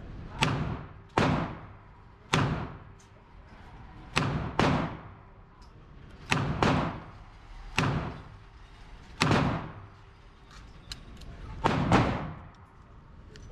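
Handgun shots on an indoor shooting range: about eleven sharp cracks at irregular spacing, some in quick pairs, each trailing off in a short echo.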